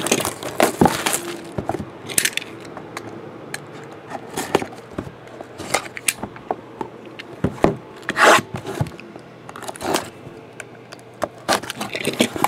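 Cellophane shrink wrap being torn and peeled off sealed trading-card boxes, plastic crackling along with cardboard boxes scraping and knocking on the table, in irregular sharp bursts.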